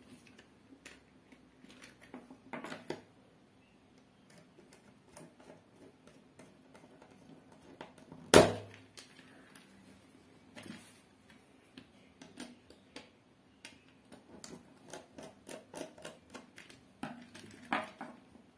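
Small clicks, taps and rustles of wires and a screwdriver being handled inside an open plastic extension box, with one sharp knock about eight seconds in.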